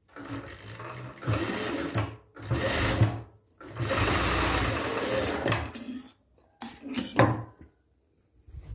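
Sewing machine stitching in short runs, stopping and starting four or five times; the longest run is about two and a half seconds, near the middle.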